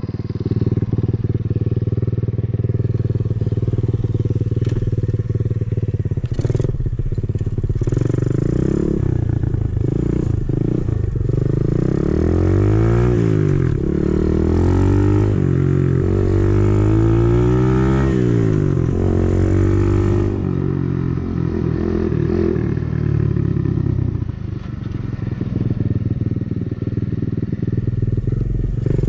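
Coolster 125cc single-cylinder four-stroke dirt bike engine, heard from the rider's position. It runs steadily at low revs at first, then rises and falls in pitch several times as it is revved up and eased off, dropping back briefly about twenty-four seconds in before picking up again.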